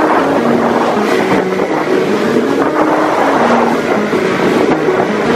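Intro music with a quick stepping melody, over the sound of a motorboat running through choppy water, with wind and splashing waves.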